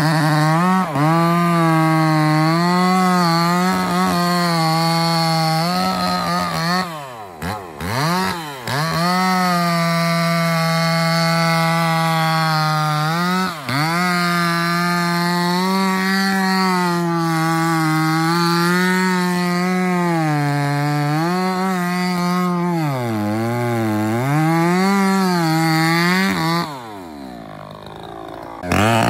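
Two-stroke petrol chainsaw cutting into the base of a large, old, dead trembesi (rain tree) trunk, running at high revs and wavering as the chain bites into the wood. About seven seconds in and again around thirteen seconds the engine speed drops sharply and climbs back; near the end it falls to idle for a couple of seconds, then revs up again.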